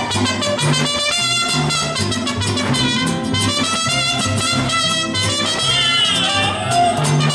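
Mariachi music with trumpets and a bass line alternating notes on a steady beat, played for a Jalisco folk dance.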